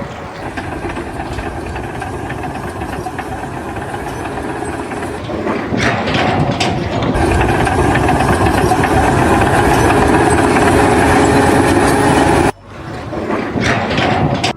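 A heavy engine running with a dense mechanical din that grows louder about five seconds in, with a few knocks. It cuts off sharply near the end.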